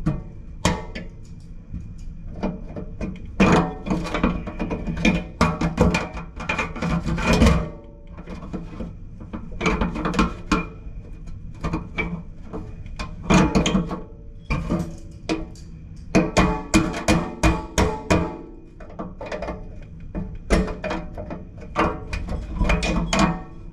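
Irregular clanking, knocking and rattling of metal parts and tools as a kitchen faucet is worked on, the knocks coming in quick clusters with short pauses between them.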